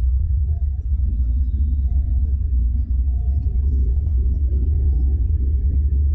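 Steady low rumble of a car driving, heard from inside its cabin: engine and road noise.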